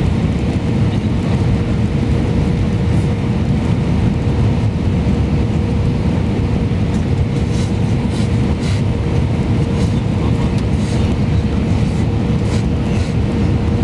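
Cabin noise inside an Airbus A320-200 on approach to landing: a loud, steady rumble of engines and airflow over the fuselage, with a steady hum running through it.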